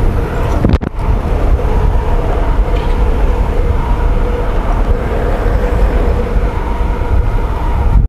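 Steady riding noise from a mountain bike rolling on asphalt: wind rushing over the handlebar camera's microphone together with the hum of the tyres on the road. It cuts out briefly just under a second in.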